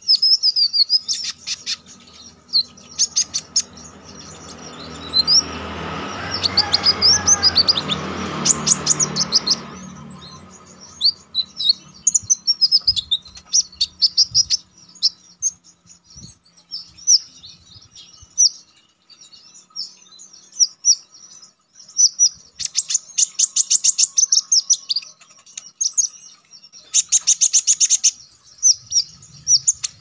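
Male Van Hasselt's sunbird (kolibri ninja, red-breasted form) singing a long run of high, sharp chirps and quick warbled notes, broken by several loud fast trills. A low rumble swells and fades under the song between about four and ten seconds in.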